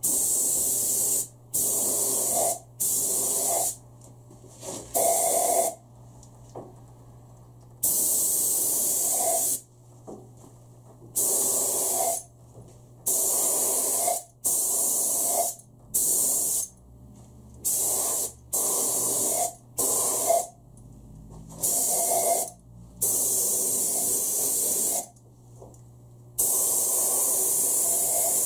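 Gravity-feed air spray gun spraying heat-resistant black paint, its trigger pulled and released in about fifteen short hissing bursts of one to two seconds each.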